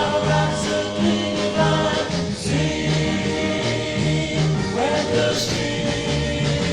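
A 1961 pop record playing: a band with a stepping bass line, and group voices singing without clear words over it.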